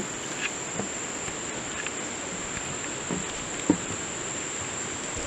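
Steady, high-pitched chorus of insects such as crickets, with a few faint knocks of footsteps on a bridge.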